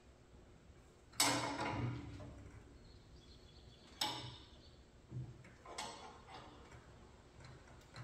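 Two sharp knocks with short ringing tails, about a second and four seconds in, followed by a few lighter clunks.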